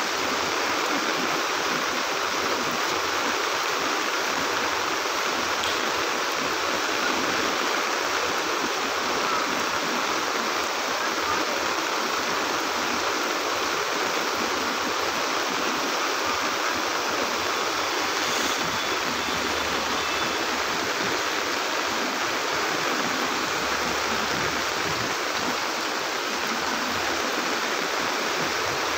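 Floodwater rushing down a street in heavy rain, with rain falling: a steady, unbroken rush of water.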